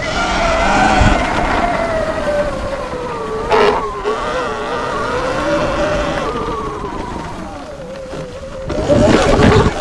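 Sur Ron X electric dirt bike's motor whining while riding, its pitch sliding down and wavering with throttle and speed. A rush of wind and tyre noise swells near the end.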